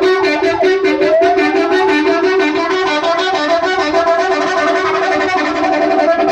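Indonesian bus 'telolet' multi-tone air horn playing a loud, rapid repeating pattern of notes, with a rising tone gliding up about a second in.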